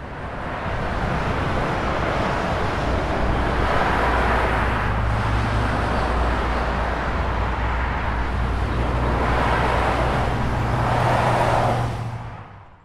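Steady rush of road traffic on a multi-lane freeway with a low hum, swelling twice as vehicles pass; it fades in at the start and fades out near the end.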